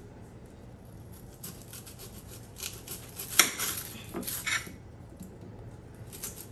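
Serrated kitchen knife cutting and peeling an onion on a glass plate: a run of short scrapes and clicks of the blade on the glass, the sharpest about three and a half seconds in.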